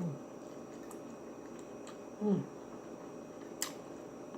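Close-miked eating sounds as a person chews tender baked jerk pork chop: soft wet mouth sounds with a few sharp lip-smack clicks, the loudest about three and a half seconds in. About two seconds in comes one short voiced "mm" that falls in pitch.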